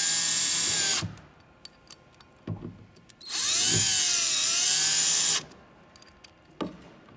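Cordless drill driving screws through a hatch ring into a plastic kayak deck: a whine that stops about a second in, then a second run of about two seconds that drops in pitch midway as the screw bites, with small clicks of handling in between.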